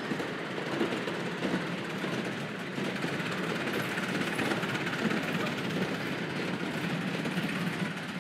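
A 1/8th-scale miniature steam train on 7¼-inch gauge track running past, a steady mix of locomotive exhaust and running noise.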